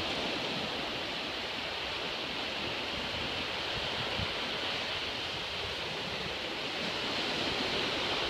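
Surf on a sandy beach: a steady hiss of small waves breaking and washing up the sand, swelling a little near the end.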